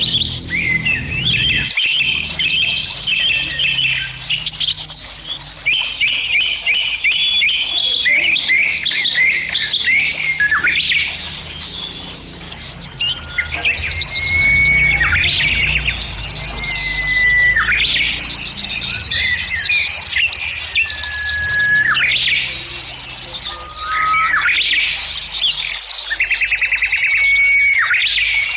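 Small birds chirping and singing: many short chirps and sweeping whistled notes, one after another, over a low steady hum.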